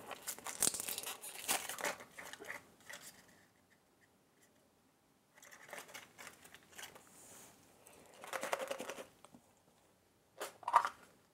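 Wrapping on a toy surprise egg being crinkled and torn open by hand, in bursts, with a quiet pause in the middle and a short sharper crackle near the end.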